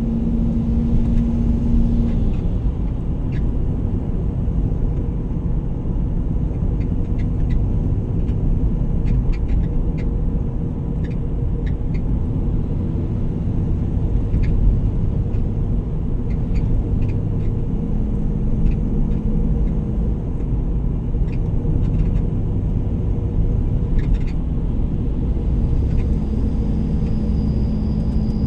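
A vehicle driving along a road: a steady low rumble of engine and tyre noise, with scattered faint ticks.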